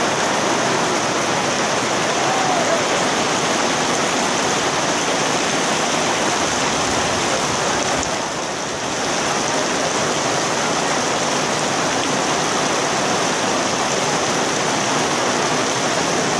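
Heavy rain falling steadily, heard from under a canvas tent canopy, with a brief slight easing about halfway through.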